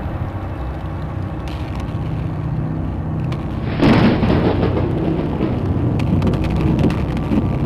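Deep, steady rumbling like distant thunder, with a sudden louder crash about four seconds in, followed by scattered crackles.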